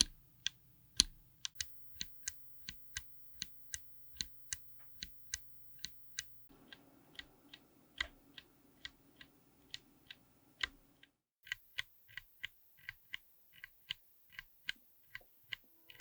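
Tactile mechanical keyboard switches clicking as keys are pressed and released in a steady rhythm, about three clicks a second. The click and the faint background change abruptly a few times, where one switch's recording gives way to the next.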